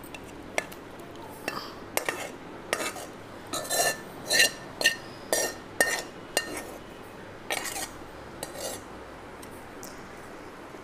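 Metal spoon scraping and clinking against a metal cooking pan and pot as chicken curry is spooned out onto rice: a string of irregular clinks and scrapes, some ringing briefly, which stop near the end.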